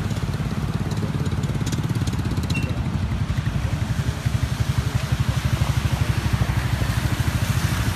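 A motor vehicle engine running close by with a fast, steady low throb, over the hiss of tyres and water on a flooded road. A short patter of clicks comes about two seconds in.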